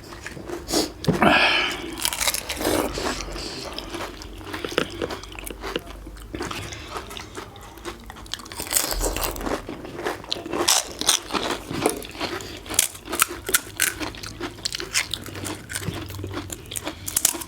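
Biting and chewing crisp panipuri (golgappa): the fried hollow puri shells crunch and crack in the mouth in many irregular sharp crunches, coming faster in the second half.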